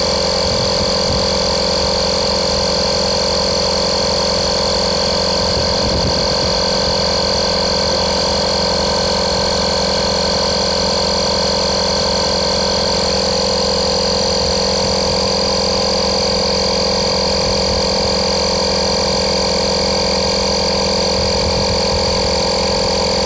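Electric air compressor from a Daihatsu emergency tyre puncture repair kit running steadily with an unchanging hum and high whine, inflating a tyre that has been filled with repair sealant.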